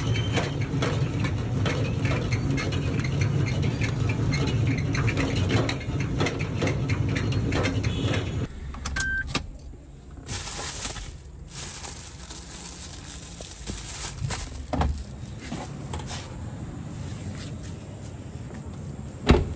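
Car on the move, a steady road rumble with many small rattles and clicks from the cabin. It cuts off sharply about eight and a half seconds in, giving way to quieter scattered handling sounds and a brief hiss, with one sharp thump near the end.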